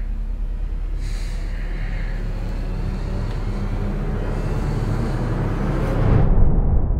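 A low, noisy rumble that slowly swells in loudness, peaks about six seconds in, then loses its top end abruptly and begins to die away.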